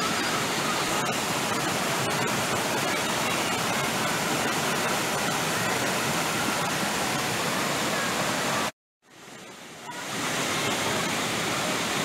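White water rushing over boulders in a waterfall-fed mountain stream, a steady full wash of water noise. A little under nine seconds in it cuts out to silence for an instant, comes back quieter and builds back to full level about a second later.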